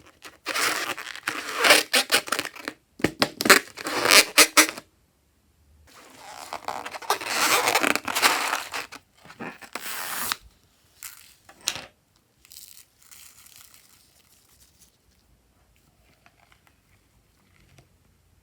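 Slime-making materials being handled, giving crinkly tearing and crackling in two long bursts, then a few short sounds about eleven seconds in and only faint squishes after that.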